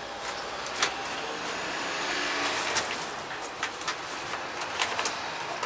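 A passing road vehicle: a broad rush of noise that swells to a peak a couple of seconds in and then fades, with scattered light knocks and clicks of timber being handled.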